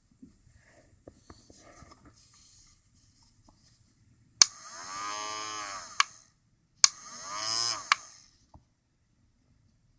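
Toy doll hair dryer switched on and off twice: each time a click, then a small electric motor whining for a second or so with its pitch rising and falling, then a click as it stops. Faint handling noises come before.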